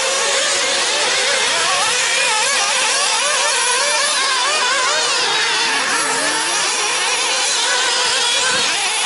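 Several nitro RC buggies racing together, their small glow-fuel two-stroke engines revving hard, a high-pitched whine that keeps rising and falling as each driver works the throttle through the corners and jumps.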